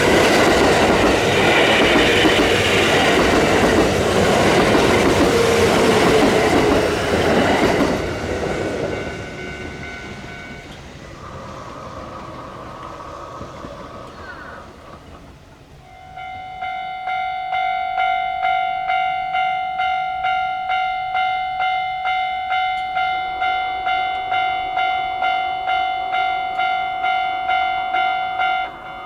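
A Kintetsu Nagoya Line train passing over a level crossing: loud rushing and wheel clatter that fades away over the first half. About halfway through, the crossing's electronic alarm bell starts, a ringing clang repeating about twice a second, and it drops suddenly in loudness near the end.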